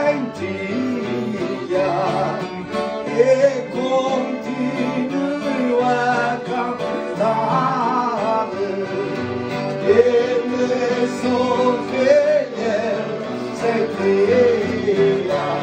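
Men singing a folk song to a strummed acoustic guitar and a second, smaller plucked string instrument.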